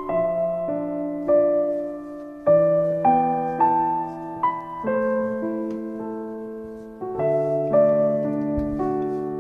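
Gentle solo piano background music, single notes and chords struck one after another and left to ring, with a held, fading chord in the middle before new notes resume.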